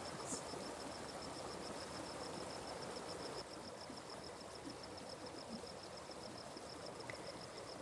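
Faint, steady rush of a forest stream, with an insect calling in a high, evenly pulsed note, about six pulses a second.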